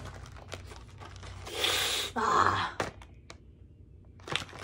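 Cardboard-and-plastic blister packs handled and turned over, with light clicks, and two short breathy rushes of noise about two seconds in.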